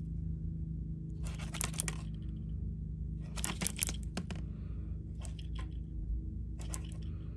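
An opened automatic wristwatch being handled, giving four short bursts of clicking and rattling, with a steady low hum behind.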